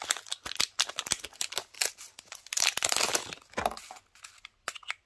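Clear plastic packets of rhinestones crinkling and crackling as they are handled, with sharp clicks throughout and a denser rustle a little past halfway, thinning out near the end.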